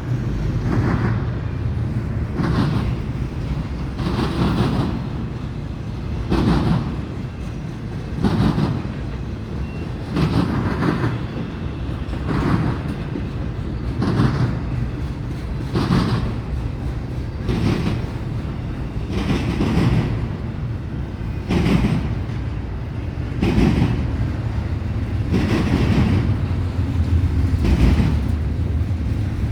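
Intermodal freight cars rolling past over a steady low rumble, the wheels clacking over rail joints about every two seconds.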